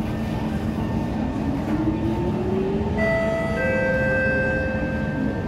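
Kawasaki C151 metro train accelerating away from a station, heard from inside the car. A steady running rumble carries a motor whine that rises in pitch over about two seconds. About three seconds in it settles into several steady, higher whining tones as the train gathers speed.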